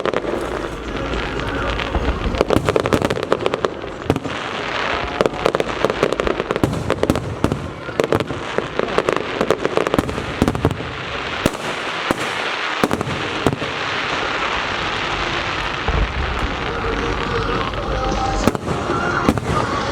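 Fireworks going off in a dense, continuous barrage of sharp crackling bangs, with voices of the crowd faintly beneath.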